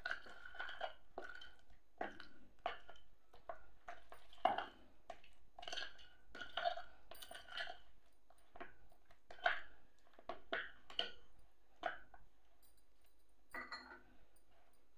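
Chicken drumsticks squelching as they are mixed by hand in a thick yogurt-and-spice marinade with oil, in irregular wet squishes, with now and then a light clink of metal bangles on the wrist. The mixing stops a couple of seconds before the end.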